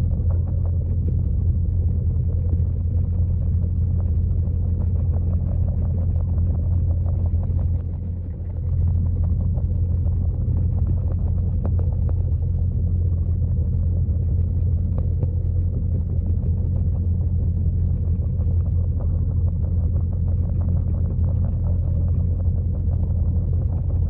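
Steady, muffled low rumble of a waterfall pouring into a pond, heard underwater, with a faint steady hum and scattered small ticks. The rumble dips briefly about eight seconds in.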